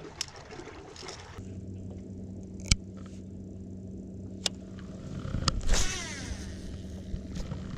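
Bow-mounted electric trolling motor humming steadily, starting about a second and a half in, with two sharp clicks and a brief louder rush about three-quarters of the way through.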